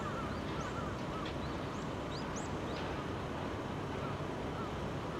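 Outdoor city ambience: a steady background rush, with small birds chirping in short, quick calls now and then.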